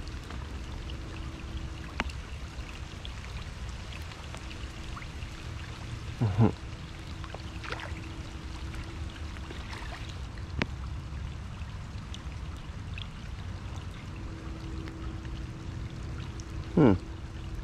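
Heavy rain falling on a creek's water surface, a steady hiss. Two short, louder sounds fall in pitch, one about six seconds in and one near the end.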